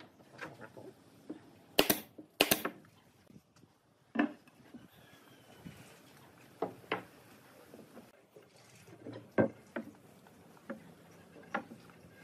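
A pneumatic nail gun fires two sharp cracks about half a second apart, about two seconds in, driving nails into pine. After them come scattered light knocks of wooden pieces being handled and set down on a wooden table.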